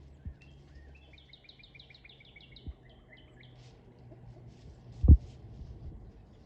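Northern cardinal singing a quick phrase of repeated downslurred notes, about five a second, lasting under two seconds, starting about a second in. Short low thumps break in three times, the loudest a little after five seconds in.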